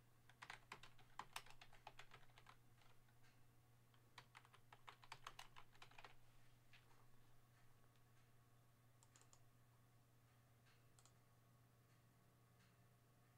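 Faint typing on a computer keyboard: two runs of quick key clicks in the first six seconds, then a few scattered clicks.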